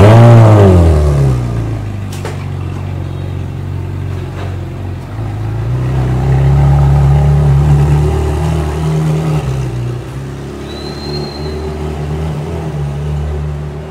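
Ferrari 458 Italia's V8, breathing through a Kreissieg exhaust, firing up with a loud flare of revs that falls to a steady idle within a couple of seconds. It then keeps running at low revs, swelling slightly partway through.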